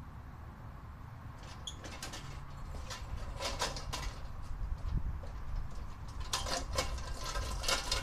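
Clicking and rattling of hard objects being handled, in two clusters: one from about one and a half to four seconds in, a denser one from about six seconds on.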